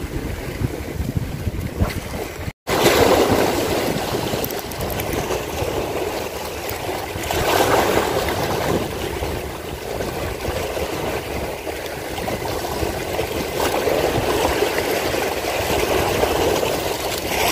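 Sea waves washing over shoreline rocks, surging and easing every few seconds. Wind buffets the microphone for the first couple of seconds, and the sound drops out for an instant at a cut.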